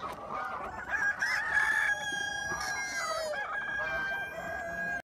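A flock of chickens: several roosters crowing over one another in long, drawn-out crows, with hens clucking.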